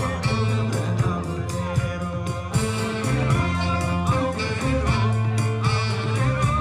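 Music with a steady beat, held bass notes and plucked guitar.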